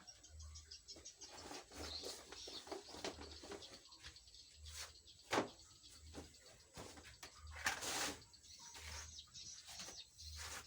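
Birds chirping, with scattered sharp clicks and knocks, the loudest about five and eight seconds in, over a soft low pulse about once a second.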